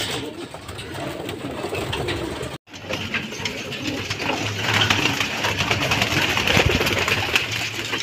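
Domestic pigeons cooing in a crowded loft. In the second half a stretch of rustling and wing flapping comes in as the flock is disturbed.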